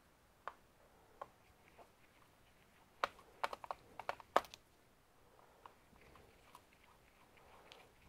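Sharp plastic clicks and snaps from gloved hands working at a laptop's bottom case, a few single clicks and then a quick run of about eight louder ones from about three to four and a half seconds in.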